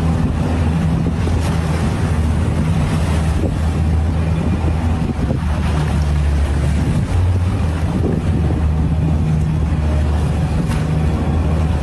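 Boat motor running steadily at speed, a low even drone, with wind rushing over the microphone and water splashing and hissing past the hull.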